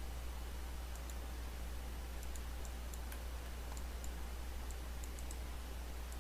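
Computer mouse clicks: about a dozen faint, irregularly spaced clicks, some in quick pairs, over a steady low electrical hum and hiss.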